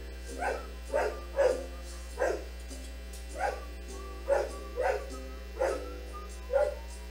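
A dog barking repeatedly: about nine short barks at an uneven pace.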